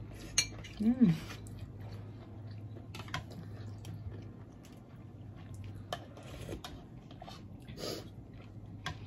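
Metal spoons and forks clinking and scraping against ceramic soup bowls and plates during a meal, in scattered single clicks, over a steady low hum. A short hummed voice sound comes about a second in.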